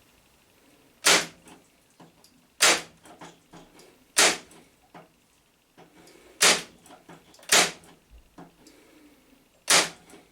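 Parkside PET 25 C2 electric nailer-stapler firing staples into wood: six sharp clacks, spaced a second or two apart.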